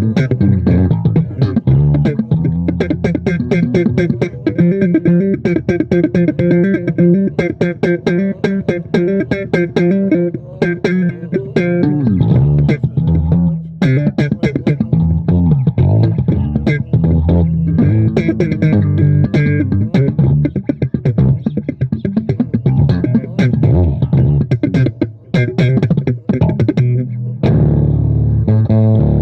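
Bass guitar music with a thumping bass line of quick plucked notes.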